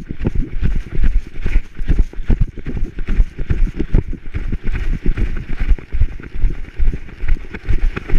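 A dog running on a leaf-covered trail, heard through a camera strapped to its back: quick, irregular thumps of its strides jolting the mount, about three a second, over a rustling hiss.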